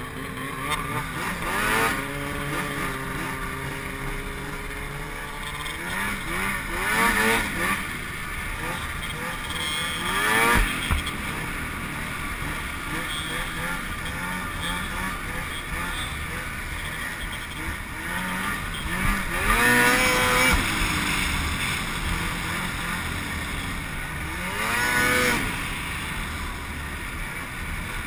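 Snowmobile engines running and revving, the engine note sweeping up and falling back several times as the sleds accelerate and ease off along the trail.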